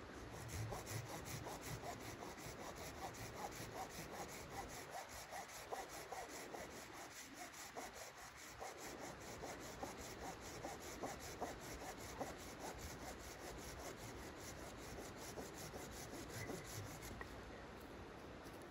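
Red-handled hand saw cutting through a peeled wooden log, in a steady run of quick back-and-forth strokes with the teeth rasping in the wood.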